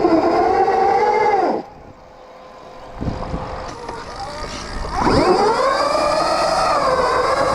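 Stark Varg electric motocross bike's motor whining under throttle, cutting off abruptly about a second and a half in. A quieter stretch with a few knocks follows, then the whine comes back about five seconds in, rising sharply in pitch as the throttle is opened again.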